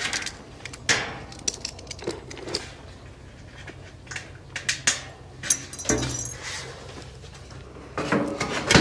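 Pre-painted steel snap-lock standing seam roof panels being handled and fitted together: scattered metallic knocks and clatter, a brief metallic ring about six seconds in, and a cluster of louder knocks near the end.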